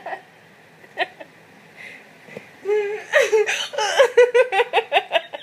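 A girl laughing and hiccuping at once: a single sharp hiccup about a second in, then from about three seconds in a burst of rapid, high-pitched laughter in quick pulses.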